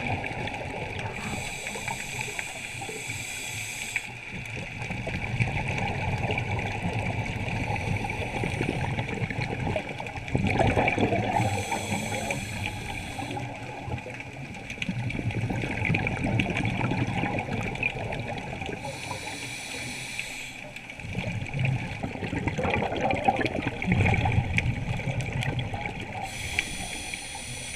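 Scuba diver breathing underwater through a regulator: a hiss about every eight seconds, with bubbling and gurgling between the hisses.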